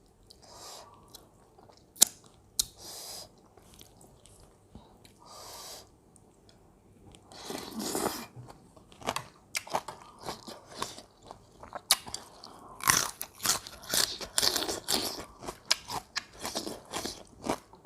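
Chewing and crunching of mouthfuls of spicy seafood papaya salad with raw vegetables. A few sharp clicks and soft chews come in the first half, then a dense run of quick crunchy bites in the second half.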